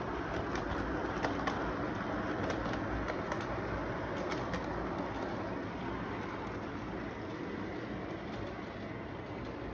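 Toy electric train running on its track as the locomotive and freight cars pass: a steady rolling rumble with a run of small clicks from the wheels and track, getting a little quieter after the last car goes by.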